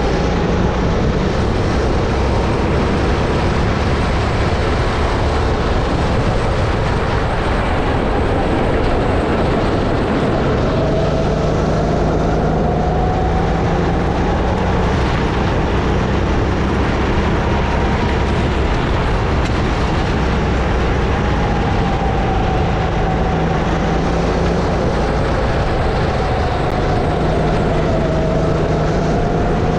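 Sodi RX-8 kart's 270cc four-stroke engine running on track, its pitch rising and falling slowly every few seconds as it revs up on the straights and drops off for corners, over a steady rushing noise.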